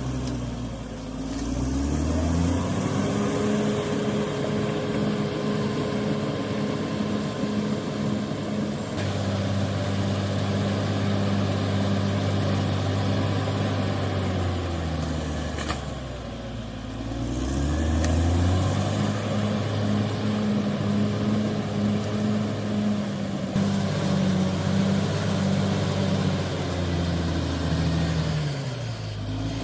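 Heavy diesel engine of earth-moving machinery revving up and held at high revs. It drops off about halfway through and then revs up again, with a faint high whistle over it.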